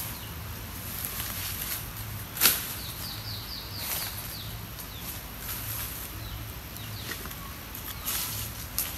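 Outdoor ambience with a steady high insect-like hiss. About three seconds in there is a quick run of about six short, high, falling chirps. Just before them comes a single sharp click, the loudest moment.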